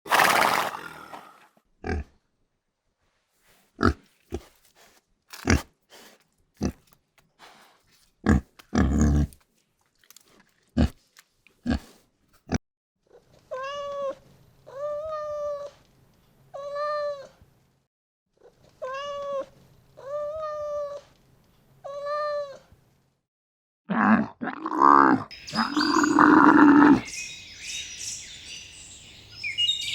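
A run of sharp clicks and knocks. Then a cat meows six times, in two groups of three arched calls. Near the end come loud, rough animal calls.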